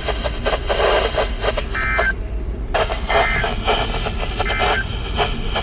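NOAA Weather Radio end-of-message SAME data: three short two-tone digital bursts, each about a third of a second and roughly 1.3 s apart, over crackling radio static. The static drops out briefly after the first burst.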